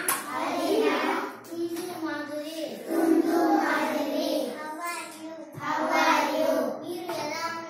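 Young children singing, in short phrases with held notes.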